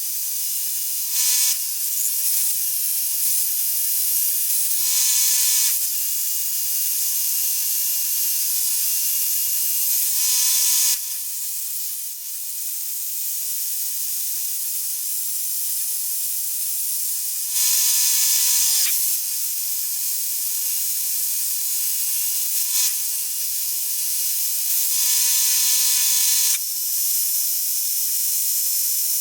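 Electric power tool working on concrete, running steadily with a fixed whine. About five times it gets louder for a second or so as it bears down harder.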